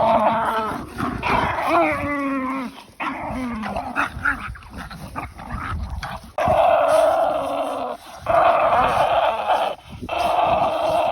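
American Bully dog vocalising in play: high, wavering whines and yips in the first few seconds, then longer stretches of rough growling in the second half.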